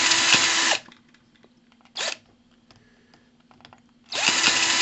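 Cordless drill spinning the flywheel of a model hit-and-miss engine to crank it: the drill whines until just under a second in and winds down, gives a short blip about two seconds in, and spins up again near the end. The engine does not catch, which the owner puts down to the needle-valve mixture setting not yet being right.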